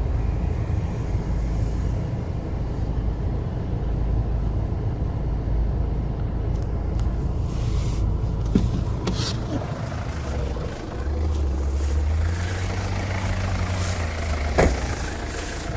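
Motor vehicle engine running with a steady low rumble, settling into a steadier low hum about two-thirds of the way in, with a single sharp knock near the end.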